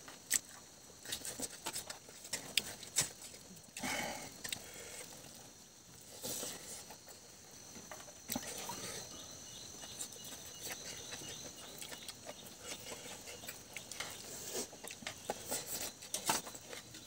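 Close-up eating sounds: a person chewing food eaten by hand, with lip smacks and many small irregular clicks.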